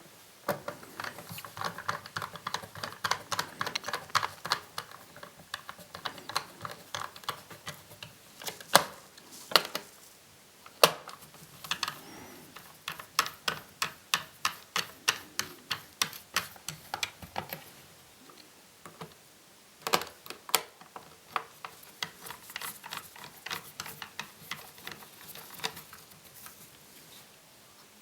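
Quick runs of small sharp clicks and taps from an opened laptop's plastic and metal parts being handled, with a few louder knocks.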